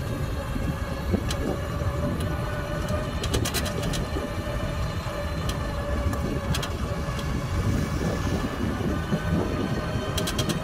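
Small open-sided electric car driving along a road: a steady low rumble with a faint constant whine, and a few short clusters of rattling clicks, the loudest about a third of the way in.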